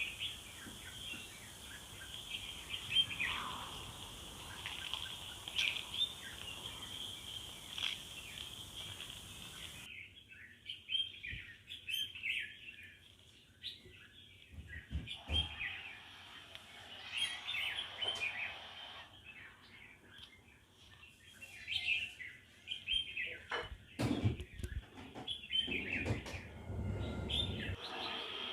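Several small birds chirping, with many short high chirps repeating throughout. A few low thuds and rumbles come in around the middle and near the end.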